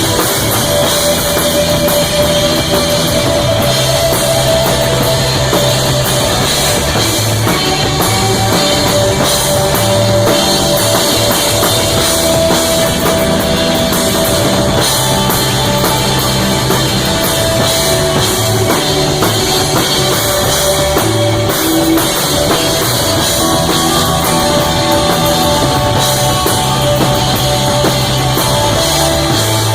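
Live rock band playing loud: electric guitar holding long notes over a bass line and a drum kit with busy cymbals.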